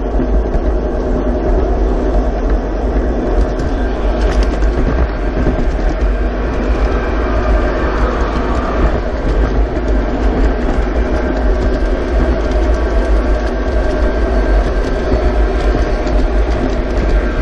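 G-scale model freight train rolling steadily along its track, heard from on board a boxcar: a continuous close rumble of wheels and running gear, heaviest in the low end.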